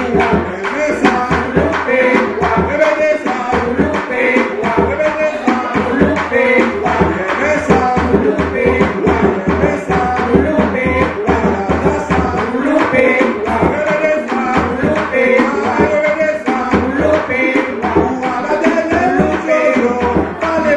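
Live bèlè music: a tanbou bèlè barrel drum played by hand in a steady, driving rhythm under group singing.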